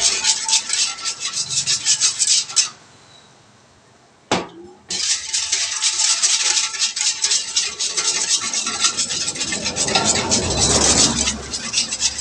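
Wire whisk beating a thin liquid in a stainless steel bowl: rapid scraping, clinking strokes of the wires against the metal. They stop for about two seconds after the first couple of seconds, a single knock sounds, and then the beating starts again and runs on.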